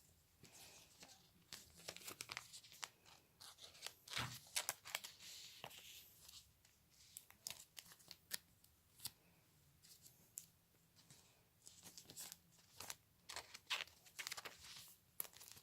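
Faint, irregular crinkling, rustling and ticking of trading cards and foil booster-pack wrappers being handled, with a denser rustle about four to six seconds in.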